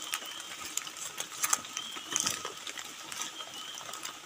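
Light rain and drips falling in irregular taps onto tent fabric and leaves.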